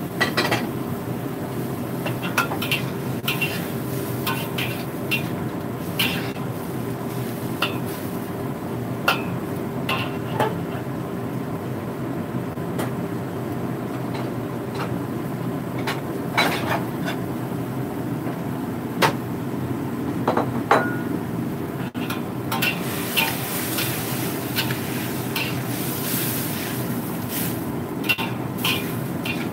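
Stir-frying in a pan: a metal spatula clinks and scrapes against the pan at irregular moments, more often near the end, over a steady hiss and low hum.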